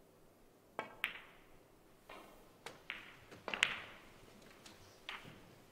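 Snooker balls clicking: a shot is played, with the cue striking the cue ball and the cue ball then cracking into the black about a second in. Several more sharp clicks and knocks of balls follow over the next few seconds, the loudest about three and a half seconds in.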